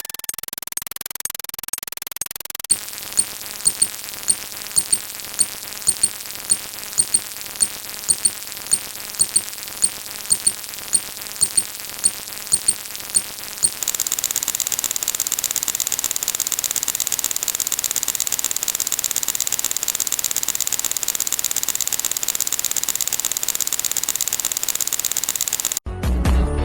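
Electronic static-like noise, a steady hiss. A few seconds in, short high pips join it at about two a second. About halfway through the pips stop and the hiss turns louder and sharper, then cuts off abruptly near the end.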